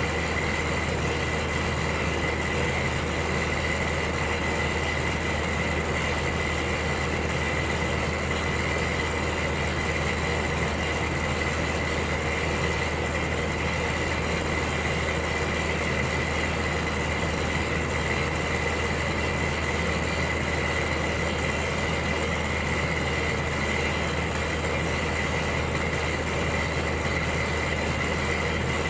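Electric heater running steadily: a constant fan-like rush with a low hum and a faint steady high whine.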